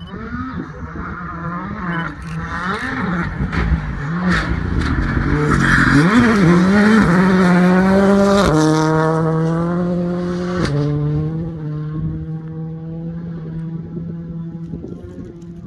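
Rally car passing at speed: the engine revs rise and fall as it comes in, loudest about halfway through, then it holds a steady note broken twice by gear changes as it pulls away and fades.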